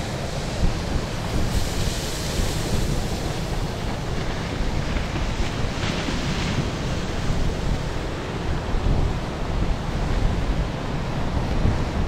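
Wind buffeting the microphone, with the steady rush of Baltic Sea surf behind it.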